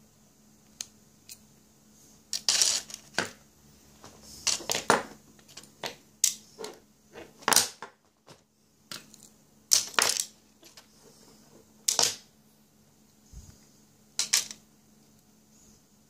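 Irregular sharp metal clicks and short scrapes from the parts of a master-pinned pin-tumbler lock being taken apart by hand with a small tool.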